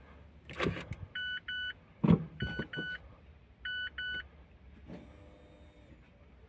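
Mazda MX-5's electronic warning beeper sounding three double beeps, a little over a second apart, with a couple of sharp clicks from the controls before them. The car's battery is too flat to crank the engine.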